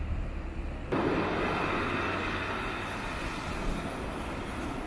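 Surf breaking and washing over a pebble beach: a steady rushing noise that comes in suddenly about a second in and holds, over a low rumble.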